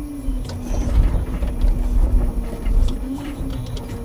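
Timber truck's loading crane at work: the hydraulics hum over the engine's low rumble, the pitch swelling and sagging a few times as the crane is moved, with scattered light knocks.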